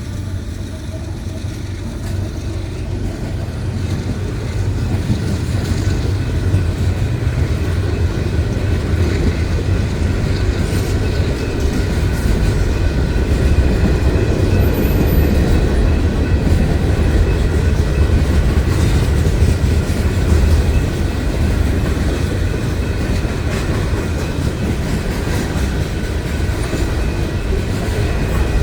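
A train passing close by: steady heavy rumble with wheels clicking over the rail joints, growing louder over the first few seconds and then holding.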